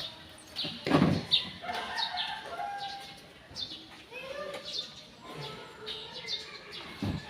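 Small birds chirping repeatedly in short, high calls that fall in pitch, with a dull thump about a second in and another near the end.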